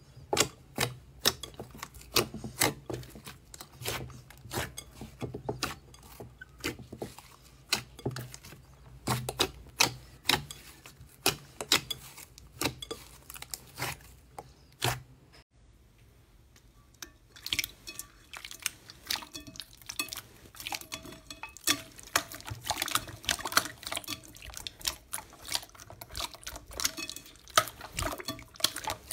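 Hands squeezing and kneading soft slime in a glass bowl, making wet clicking and popping squelches. A low hum sits under the first half; after a short lull about halfway, the pops come faster and more crackly.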